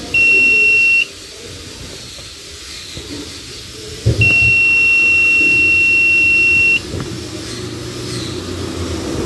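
Digital multimeter on continuity test beeping twice as its probes bridge pins on a phone's flex cable: a short steady high beep of about a second, then a longer one of about two and a half seconds. The beep signals continuity, which here marks the short between a flex pin and ground.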